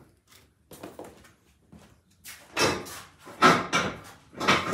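Workshop handling noises: several short scraping, rattling bursts, the loudest three in the second half, as metal parts and tools are moved around.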